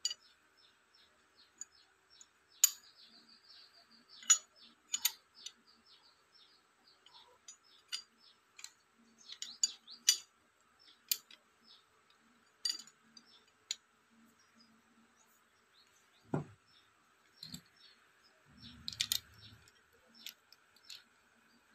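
Scattered light clicks and metallic taps as an LVLP spray gun and its flat metal spanner are handled by gloved hands. There is a dull thump about sixteen seconds in and a short rustling handling noise near the end, over a faint steady high hum.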